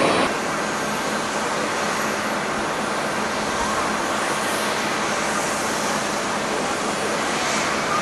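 Louder jet noise cuts off abruptly about a quarter of a second in and gives way to a steady, even rushing noise of distant jet airliner engines.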